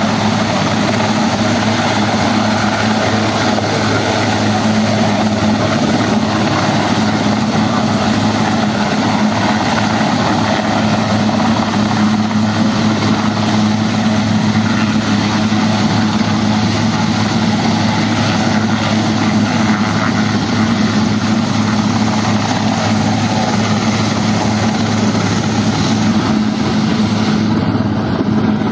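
Westland Sea King helicopter hovering, its rotor and twin turbines making a loud, steady noise with a constant low hum.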